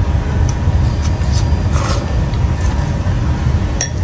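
Steady low rumble of outdoor street noise. Over it come a few brief soft sounds of noodles being eaten from a bowl, and near the end a sharp click as a ceramic bowl is set down on the wooden table.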